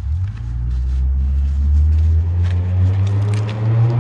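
A motor vehicle's engine running loud and close, a low steady drone that steps up in pitch about two seconds in.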